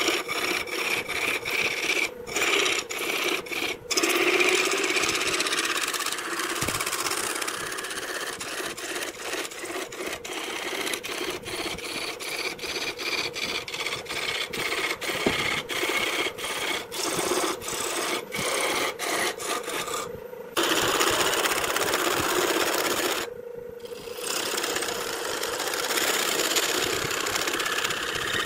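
Wood lathe turning a wooden blank while a turning tool cuts it: a continuous scraping, hissing cut with shavings peeling off, over the steady hum of the lathe motor. The cut keeps breaking off for split seconds as the tool comes away, with two longer pauses in the cutting about two-thirds of the way through.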